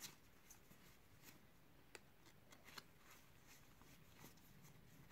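Faint, irregular clicks of a stack of SEGA Dinosaur King trading cards being thumbed through one by one in the hand.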